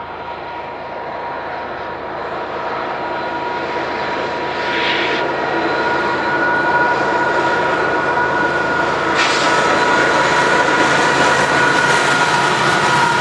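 Union Pacific diesel locomotives leading a double-stack container train on approach, engine noise with a steady high whine growing steadily louder and brighter about nine seconds in as the train draws close.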